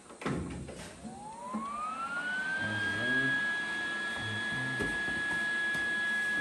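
Welder switched on after a clunk: a whine rises over about two seconds and then holds steady at a high pitch.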